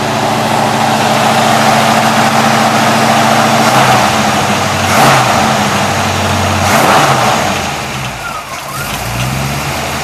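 Chevrolet 327 small-block V8 running, its pitch shifting a few seconds in, with two short swells of throttle about five and seven seconds in. The knock being hunted is not heard here: "Nothing."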